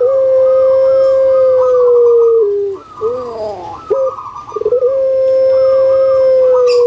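Puter pelung (Streptopelia risoria) dove singing: two long held coos, each over two seconds and ending in a small drop in pitch, with a few short falling notes between them.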